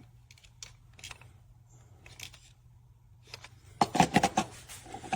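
Handling of a product and its packaging: scattered small clicks and knocks, with a quick run of louder knocks about four seconds in.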